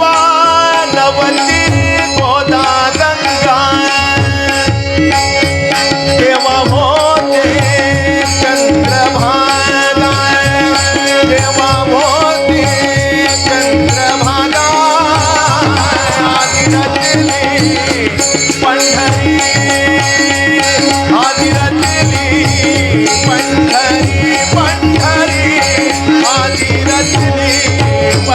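Marathi devotional abhang music: a wavering melodic line over steady tabla-like hand-drum rhythm, with no clear singing.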